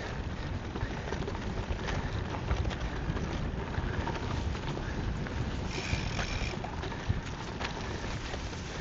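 Wind rumbling on the microphone of a moving gravel bike, with tyre noise over the rough trail and scattered short knocks and rattles from the bike.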